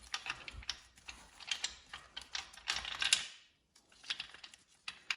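Metal engine parts clicking, scraping and rattling against each other as they are worked loose by hand during engine teardown. The clicking is busy for about three seconds, then drops to a few scattered clicks.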